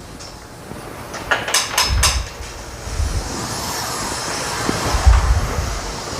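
Hoover Steam Complete Pet steam mop working a tile floor with a steady hiss of steam, turned down to medium. A quick cluster of sharp clicks comes about a second and a half in, and dull low thuds come as the mop is moved.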